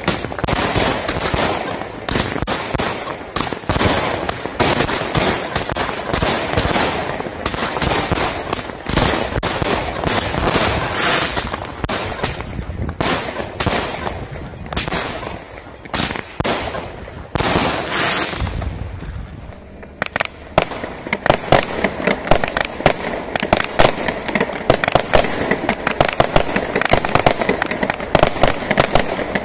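Three 20-shot consumer fireworks cakes firing together: a rapid, continuous run of bangs. The bangs thin out briefly about two-thirds of the way through, then come back faster and denser.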